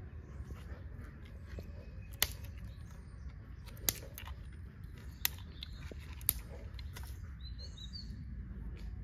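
Birds chirping over a steady low rumble, with four sharp clicks a second or two apart.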